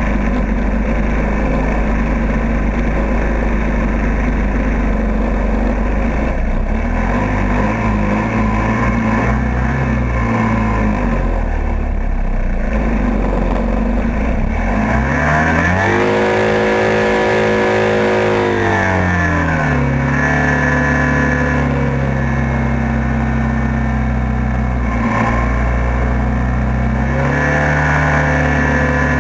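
Hovercraft engine and fan running loud, heard from on board as the craft travels. The revs rise about fifteen seconds in, hold for a few seconds, drop back around twenty seconds, and climb again near the end.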